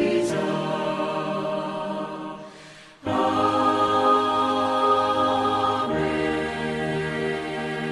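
Choir singing the closing phrases of a hymn. One phrase trails off about two and a half seconds in. After a short breath a new chord is held, shifting once about three seconds later and sustained through the end.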